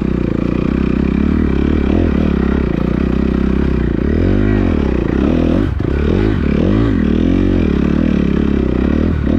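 Kawasaki KX250F four-stroke single-cylinder motocross engine running under throttle while riding, its note rising and falling several times in the second half as the rider works the throttle.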